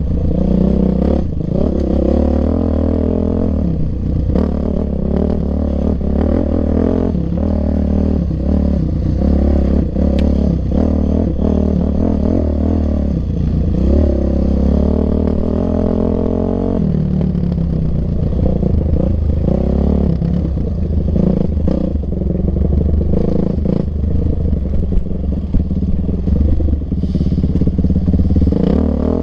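Yamaha YZ450F's single-cylinder four-stroke engine under way in a race, its revs rising and falling with the throttle and dropping sharply a little past halfway, with scattered knocks and rattles.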